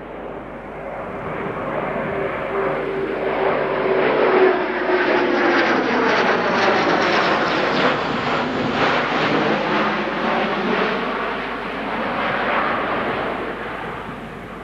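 Airbus A400M Atlas's four turboprop engines and propellers in a flypast: the sound swells over the first few seconds, a steady propeller tone drops in pitch as the aircraft passes, and it then fades as the aircraft flies away.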